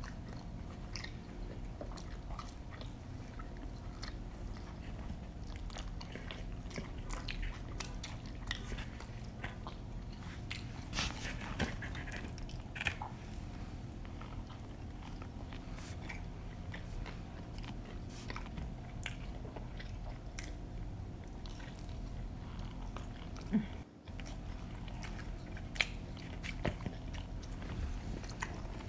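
Close-miked chewing and biting of pizza, with irregular wet mouth smacks and clicks and an occasional crunch of crust, over a steady low hum.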